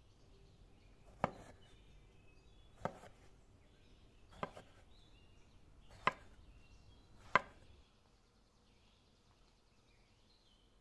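A cleaver chopping through eggplant and striking a stone slab: five sharp chops about a second and a half apart.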